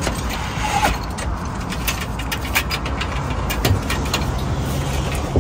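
Steady low rumble under scattered light clicks and knocks as a solar panel's metal frame is handled and set onto the aluminium roof mounting rails.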